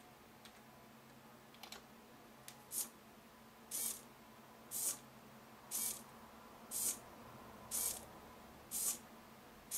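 Small hobby servo motor driven by PWM pulses from a Raspberry Pi, whirring in short bursts about once a second as its arm moves to each new position. A few computer keyboard keystrokes come first.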